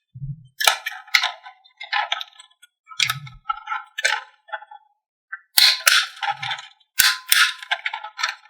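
Marbles clicking and clattering down a wooden marble run track in irregular bursts of sharp clacks, with a few short low thuds. The clatter is densest in the last three seconds.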